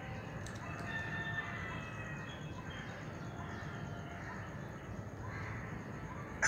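Faint bird calls: many short chirps and a few longer drawn-out calls, over low background noise.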